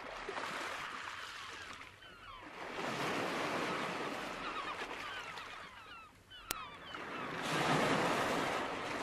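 Surf washing in and drawing back in three slow swells of rushing noise.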